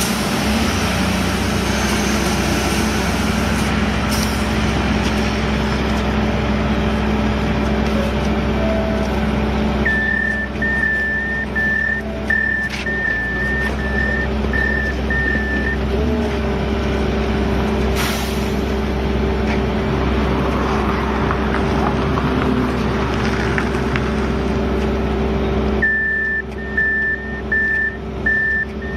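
Heavy road-construction machinery running steadily with a diesel-like engine hum, and a reversing alarm beeping at a regular pace in two stretches, about a third of the way in and near the end.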